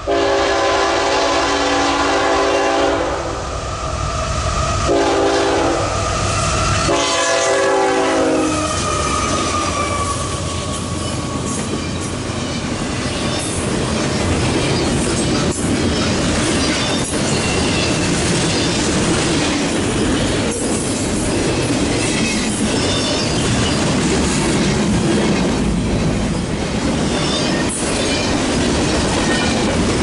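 A CSX ET44AH locomotive's Nathan K5HLR2 five-chime horn sounds a long blast, then a short one, then a third whose pitch drops as the locomotive passes (Doppler effect). After that, the train's double-stack container cars roll past at speed with a steady rumble and clatter of wheels on the rails.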